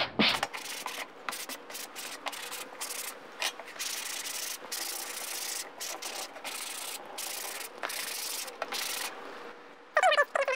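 A 120-grit sanding block rubbed lightly over high-density polyethylene (King StarBoard), a hissy scratching in many short back-and-forth strokes, scuffing the plastic's surface so the adhesive will bond.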